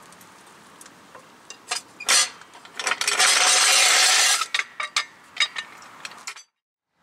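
Steel floor jack being lowered and pulled out from under the car: scattered metal clinks, then a loud grinding rattle of about a second and a half as it is dragged out, then more clinks. The sound cuts off suddenly near the end.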